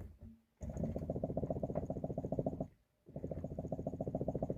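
Rapid, evenly repeated knocking rattle from a Lada Vesta's front shock absorbers as an improvised vibration rig shakes the front suspension, in two runs with a short break near the middle. It is the front-suspension knock the car makes over small bumps at low speed, a knock that did not go away as promised.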